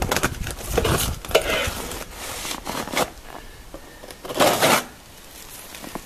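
Rustling, scraping and light knocking of packing material and parts being handled in a shipping crate, with a louder rustle about four and a half seconds in.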